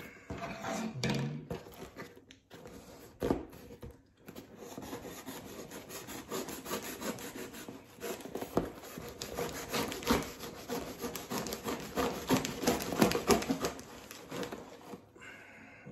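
Cold Steel Kobun knife sawing and slicing through a corrugated cardboard shipping box. There are a few separate scrapes at first, then a steady run of rasping strokes from about four seconds in, until near the end.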